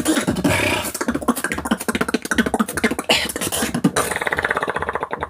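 Solo human beatboxing: fast mouth-made kick, snare and click sounds mixed with short vocal tones, turning about four seconds in to a continuous rapid buzzing roll.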